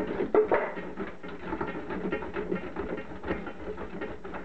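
A bar of soap being rasped up and down a stainless steel box grater over a steel bowl, in quick repeated scraping strokes.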